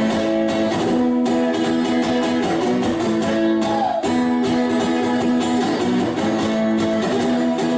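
Instrumental break in a song: guitars playing steady strummed chords with a bass line, no singing.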